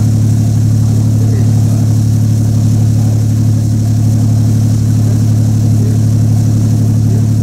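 Boat engine running steadily, a constant low hum that is loud and close, heard from on board the moving boat.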